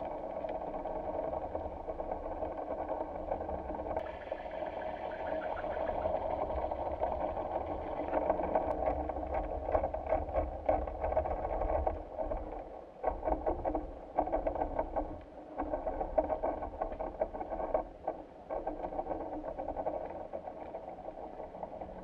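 Underwater recording from a dive camera: a steady low hum with a band of mid-pitched noise. It runs unbroken at first, then from about halfway on it drops out briefly every second or two.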